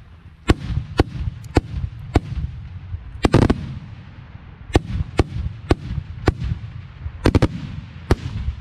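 Italian festival firework bombs (aerial shells) going off overhead in an irregular run of about fifteen sharp bangs. Some come in quick doubles and triples, and the loudest cluster is a little past three seconds in. A low rumble carries on between them.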